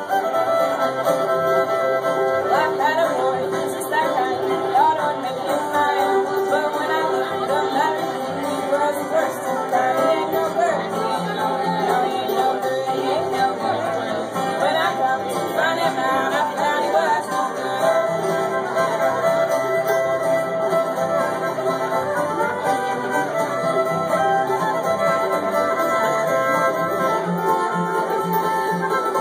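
Old-time string band playing live: a fiddle leads over strummed acoustic guitar and banjo.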